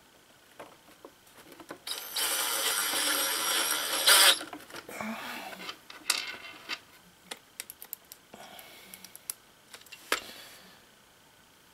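Ryobi cordless drill running steadily for about two seconds as it drives a screw into the wooden box, ending in a sharp crack, followed by light clicks and handling rattles.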